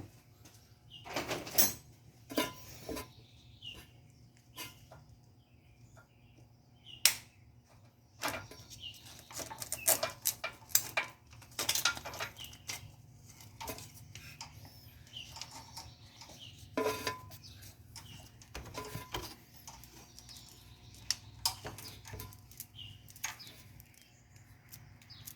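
Hand tools and loose metal engine parts clinking and clanking at irregular intervals while a timing chain and its guides are being removed from an engine.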